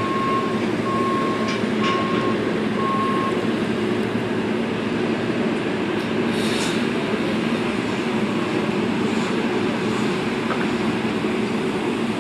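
Steady vehicle engine drone with a backup alarm beeping at an even pace, about twice a second, for the first three seconds or so. A brief hiss comes about six and a half seconds in.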